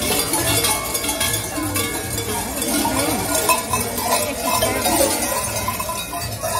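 Large cowbells worn at the waist of a horned, fur-costumed Krampus figure clanging repeatedly as the wearer moves, with crowd chatter behind.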